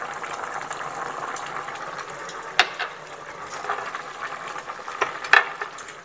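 Pot of green beans and potatoes in chicken broth boiling on the stove: a steady bubbling hiss, with two short sharp clicks about two and a half and five seconds in.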